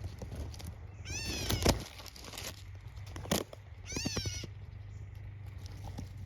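A cat meowing: two short, high calls, about a second in and again about four seconds in, with a few sharp knocks in between.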